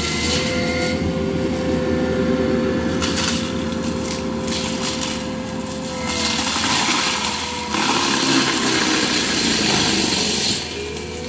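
A Prinoth M450s forestry mulcher on a tracked loader, its spinning drum running with a steady whine while it shreds trees and brush. The pitch sags briefly under load, and the grinding of wood swells loudest from about eight seconds in to near the end.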